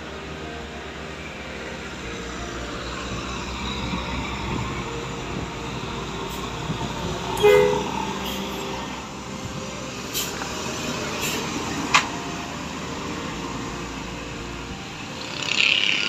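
Mercedes-Benz tour coach's diesel engine running as the bus climbs the grade toward and past, its drone growing louder over the first half. A short horn toot sounds about halfway through, and there is a sharp click near the end.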